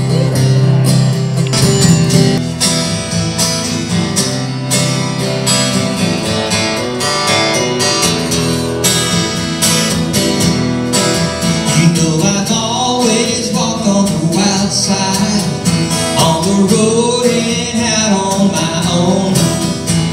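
Steel-string acoustic guitar strummed in a steady rhythm, played live as an instrumental break with no lyrics. In the second half a wavering melody line rides over the strumming.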